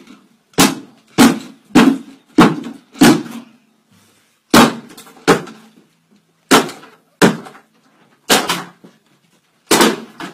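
A man stamping hard with his foot on an object on the floor: about a dozen sharp, heavy thuds in quick runs with short pauses between them.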